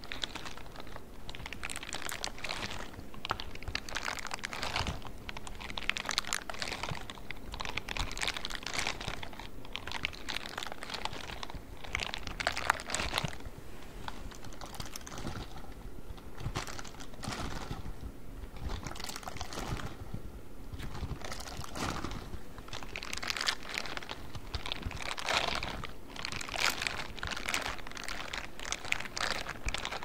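Silicone scrubbing gloves with rubber bristles rubbed and brushed against a microphone's metal grille: dense, irregular scratchy clicking and crackling that swells and eases in waves.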